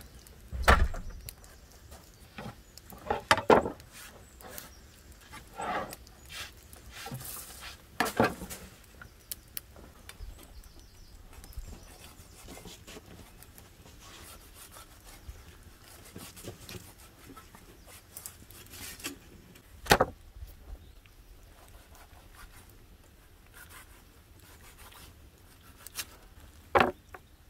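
Scattered knocks and rubbing from handling a wooden cutting board and raw beef liver and heart, a few separate louder bumps spaced well apart.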